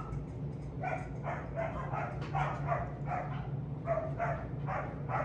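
Puppy whining in short repeated yelps, about three a second, starting about a second in: a young dog fretting to be let outside to relieve himself.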